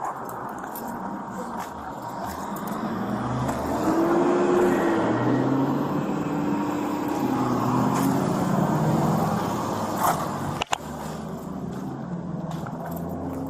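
Car engine and road noise from inside a moving car, the engine pitch rising and falling as it speeds up and slows.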